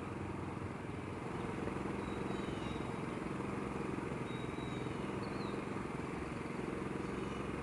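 WEN DF400i inverter generator's 212cc four-stroke engine running steadily in eco mode, heard from about 20 feet away: an even, quiet hum.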